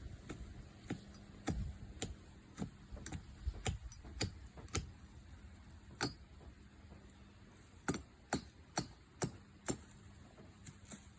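A series of sharp, irregular knocks and clicks, about two a second with a pause in the middle, from a trap stake being worked loose from the ground.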